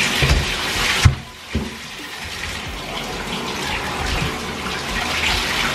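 Water running from a tap into a bathtub, with a sharp knock about a second in and a brief dip in the water sound after it.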